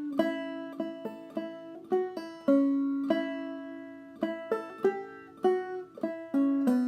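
Five-string banjo played clawhammer style: a phrase of a fiddle tune in the key of A, single plucked notes and brushed strums ringing and fading in a bouncy rhythm of about two to three notes a second.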